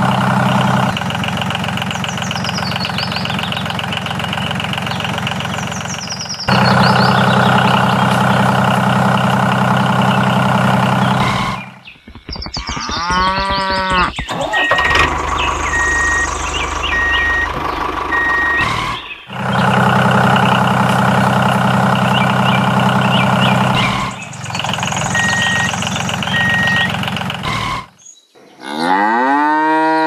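Tractor engine running steadily in long stretches that stop and start again. A cow moos twice, once about halfway through and once at the end. In between come short, evenly spaced high beeps, like a vehicle's reversing alarm.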